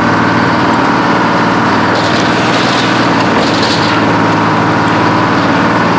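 Bucyrus-Erie 22-B cable shovel running steadily as it swings its clamshell bucket. A rush of hiss and clatter comes between about two and four seconds in.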